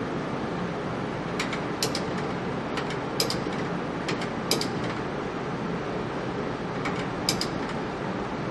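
Steady running noise of workshop machinery, with sharp clicks several times, mostly in pairs about half a second apart.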